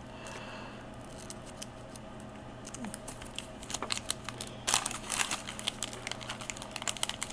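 Crinkling and rustling of a plastic parts bag, with light clicks and taps, as another new capacitor is taken out by hand. The handling grows busier about halfway through.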